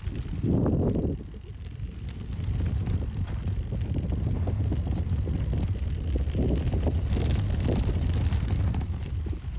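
Mountain bike riding down a rough trail: wind rumbling on the microphone and the bike rattling over the ground, with a louder thump about half a second in.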